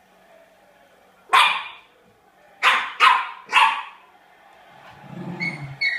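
Sealyham terrier barking sharply four times in quick succession, followed near the end by a low growl.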